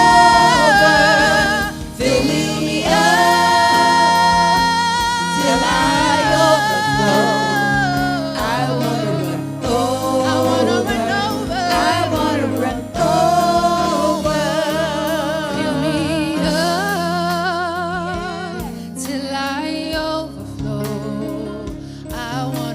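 Gospel music: sung vocals with held, wavering notes over steady instrumental backing, a worship song during the church service.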